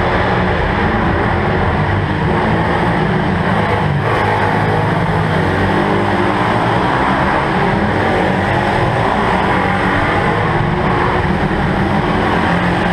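Several small pitbike engines running together as the bikes ride laps around the track, a continuous, steady engine noise.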